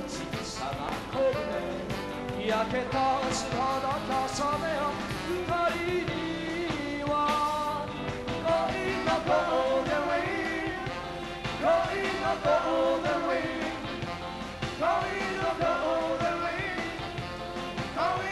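Live rock and roll band playing a light pop-style number, a male singer's voice over electric guitar and drums.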